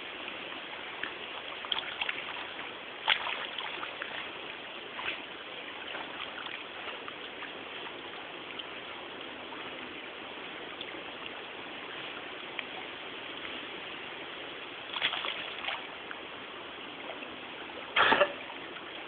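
Steady rush of flowing water with a few short splashes from a dog swimming, the loudest near the end.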